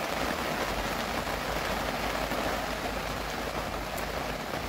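Steady, even background hiss with no distinct strokes or knocks.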